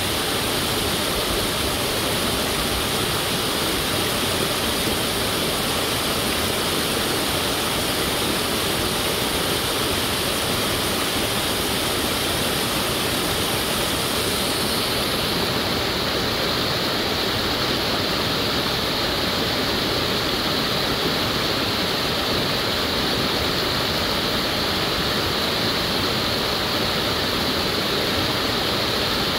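Small waterfall cascading over rock into a pool: a steady rush of falling water, its upper hiss thinning slightly about halfway through.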